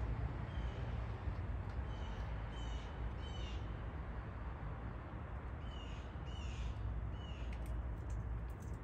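Short, sharp animal calls repeated about every three-quarters of a second, four in the first half and three more in the second half, over a steady low rumble, with a few faint clicks near the end.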